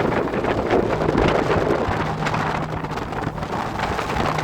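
Strong mountain wind in a snowstorm buffeting the microphone, a loud, steady rushing noise, with a faint low hum under it.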